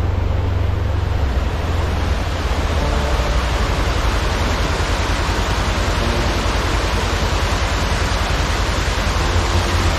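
Mountain creek rushing in white-water cascades over bedrock slabs: a steady rush of water with a strong low rumble.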